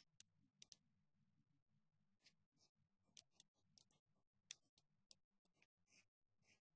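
Near silence: faint, irregular small ticks and scratches of a fine paintbrush dabbing paint onto paper.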